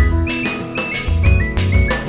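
Background music with a steady drum beat, heavy bass and a high, stepping melody line.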